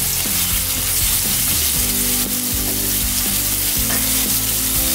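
Ground shallot, garlic and shrimp paste sizzling steadily as it fries in hot oil in a pan, with a few light knocks from stirring.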